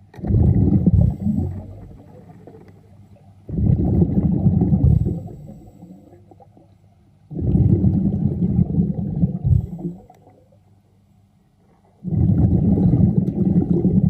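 A diver breathing underwater: four exhalations, each a burst of air bubbling out, coming about every four seconds with a quiet hush between.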